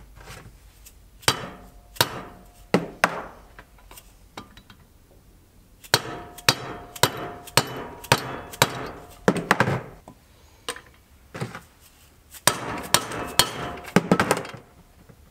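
Orange soft-faced mallet striking a part into an aluminium Puch ZA50 moped engine case: a few separate blows, then two quick runs of hard blows, some leaving a short metallic ring. The part is being driven in hard where it would not drop into its seat.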